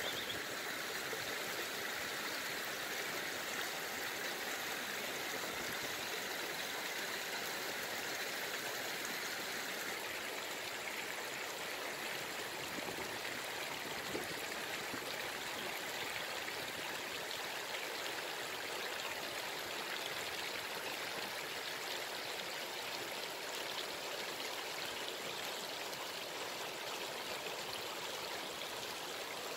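Water rushing and splashing over rocks at a lake's edge, a steady, even wash with no change throughout.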